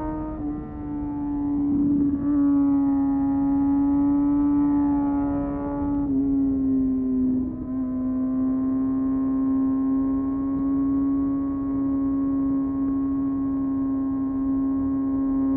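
2022 Kawasaki ZX-6R's inline-four engine running at steady high revs, a constant high-pitched drone that sags slightly in pitch about six seconds in and then holds again.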